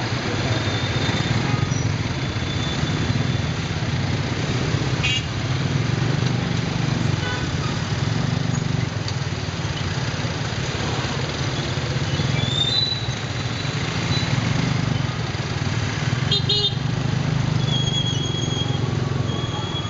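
Motorbike engine of a tuk-tuk running steadily in dense motorbike traffic, with short high horn toots from the surrounding bikes sounding a few times.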